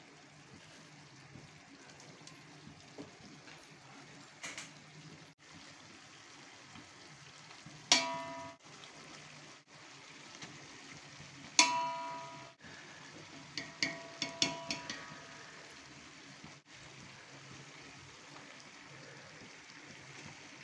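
Metal spoon knocking against a steel cooking pot, each knock ringing out briefly: single knocks about 8 and 12 seconds in, a quick run of taps around 14 seconds, and another at the end. Under them a faint steady hiss.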